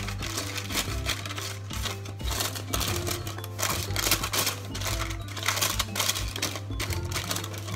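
Silicone pastry brush swiping oil across parchment paper in a cake pan, the paper rustling and crinkling with quick irregular strokes, over background music.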